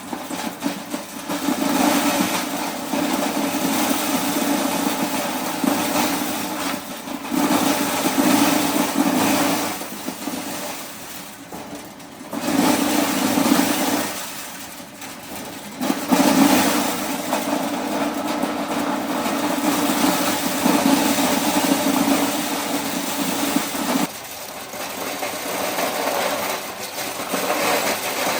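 An engine running, its sound swelling and easing in stretches of a few seconds, with short lulls between.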